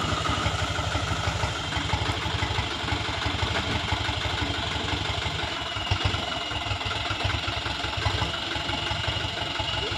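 Diesel engine of a loaded Toyota Dyna 130HT dump truck running at low revs as the truck creeps forward, a steady low throb. A single clunk comes about six seconds in.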